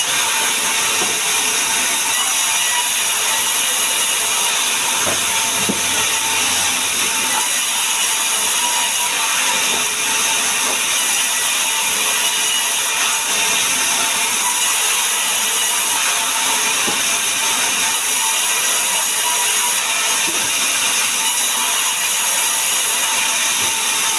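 Power tool running steadily on sengon wood, an unbroken high-pitched noise at a constant level.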